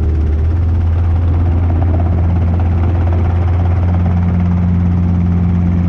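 Robinson R22 helicopter's four-cylinder piston engine and rotor running steadily under power, heard from the cockpit as a loud, even low drone while it hover-taxis low along the runway. A second, slightly higher hum joins about four seconds in.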